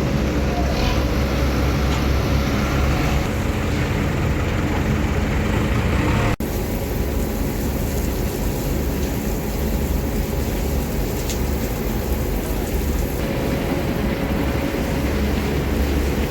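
Heavy vehicle's diesel engine running steadily, with a momentary break in the sound about six seconds in.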